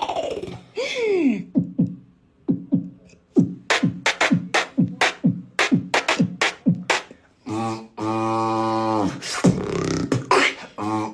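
Vocal beatboxing: a fast run of short kick-like hits, each dropping in pitch, followed by long held buzzing notes.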